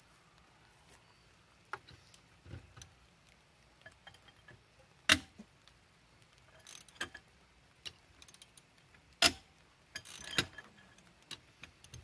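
Metal clanks and clinks of a lug wrench, with a bar fitted on the back of it for leverage, going onto and working a car wheel's lug nuts to break them loose. A few sharp clanks, the loudest about five and nine seconds in, with light ticks between.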